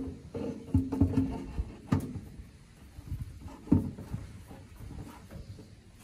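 A metal plate and shaft knocking and scraping against the washing-machine tub as they are worked into place by hand. There are several sharp knocks, the loudest at about a second, two seconds and near four seconds in, with quieter handling in between.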